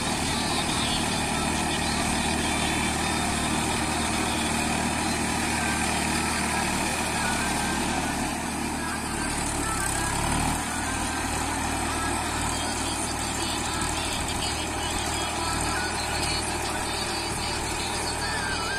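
Massey Ferguson 241 DI tractor's three-cylinder diesel engine running steadily under load as it pulls its cage wheels through deep paddy-field mud; its low note shifts about ten seconds in.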